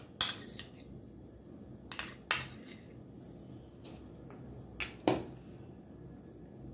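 Steel spoon clinking and scraping against a bowl and a steel plate while mayonnaise is scooped onto a pizza base: a few sharp clinks in pairs, about two and a half seconds apart, over a faint low hum.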